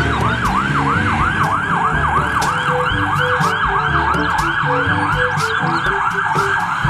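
Electronic siren of a toy ambulance in a fast yelp, rising sweeps repeating about four times a second.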